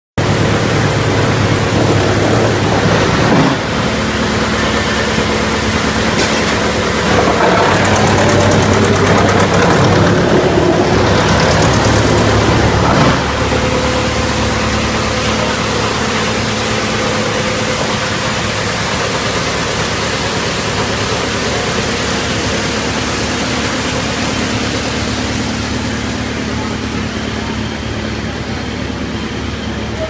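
Electric-motor-driven drum wood chipper running: a loud, steady mechanical din with a low hum. It is heaviest over the first dozen seconds, then evens out and slowly eases off.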